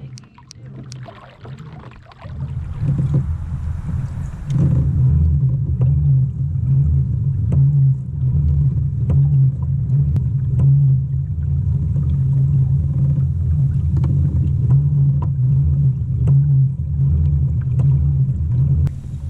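Fishing kayak under way across the water, with a steady low rumble from its drive and hull that builds about two and a half seconds in, and light ticks throughout.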